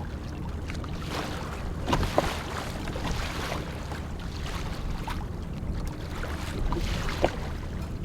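Water lapping and splashing against a kayak, with wind on the microphone and a steady low hum. A few short sharp splashes or knocks about two seconds in and again near the end.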